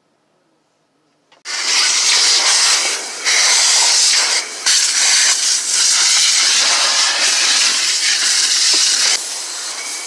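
Car wash vacuum sucking through its hose over a car's floor mat: a loud, steady hiss that starts about one and a half seconds in, dips briefly twice, and drops a little near the end.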